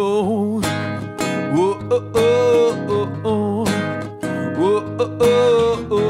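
Acoustic guitar strummed in a steady rhythm while a man sings a melody over it.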